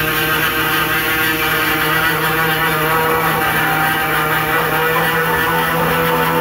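Pneumatic air body saw with a small reciprocating sawzall-type blade cutting through a new sheet-steel rocker panel: loud and steady, with a strong pitched hum over the rasp of the blade.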